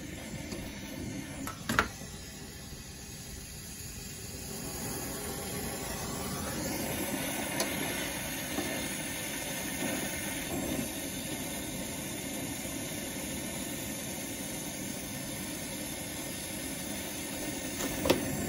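Brazing torch flame hissing steadily as it heats a copper tube joint on a refrigerator compressor to unbraze it. The hiss grows a little louder about six seconds in, and there is a sharp click about two seconds in.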